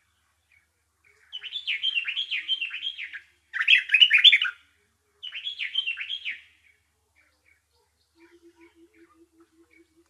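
Small songbird singing: three bursts of rapid chattering song, each a quick run of repeated downward-sweeping notes, the middle burst the loudest, followed by a few faint scattered chirps.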